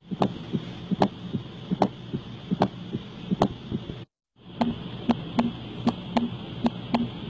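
Recorded heart sounds: a regular beat of sharp clicks about once every 0.8 seconds. After a brief silent break a second recording follows, with faster, closer-spaced beats and low thuds between them.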